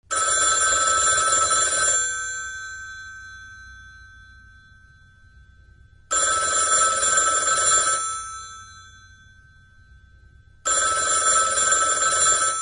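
Telephone bell ringing three times. Each ring lasts about two seconds and fades out after it stops; the second ring starts about six seconds in and the third near the end.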